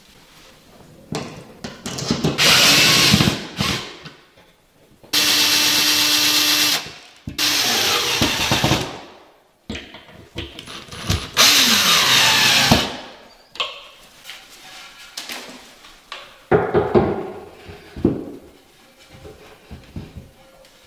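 Cordless drill running in four bursts of a second or two, its pitch dipping and rising in some of them, driving screws to fix a metal shelf bracket to the wall. Lighter knocks and handling sounds near the end as a wooden shelf board is set on the brackets.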